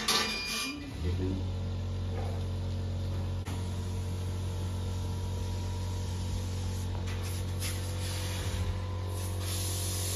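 A steady low hum, holding one pitch with faint overtones, that starts about a second in and cuts off abruptly near the end.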